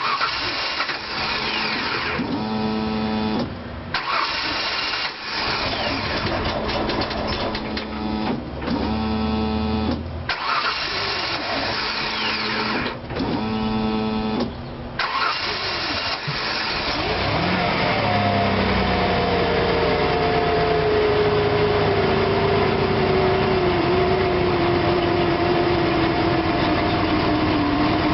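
Car engine being cranked by its starter in a series of short attempts, broken by brief pauses, before it catches and keeps running, a sign of hard starting. Once running, it gives off a steady sound with a whine that slowly falls in pitch as the engine settles toward a rough idle.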